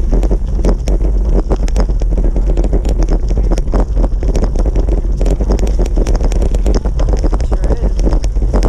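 Wind buffeting the microphone of a moving bicycle on a crushed-stone trail, a heavy rumble under many quick rattles and knocks from the ride over the surface.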